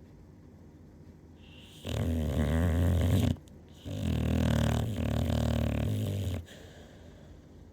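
Loud snoring: two long snores close together, the first about a second and a half, the second about two and a half seconds, with a brief pause between them.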